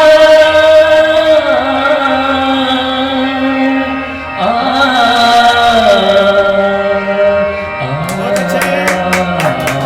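Closing bars of a Hindi film song on a karaoke backing track, long notes held and changing pitch every second or two. Hand clapping begins about eight seconds in.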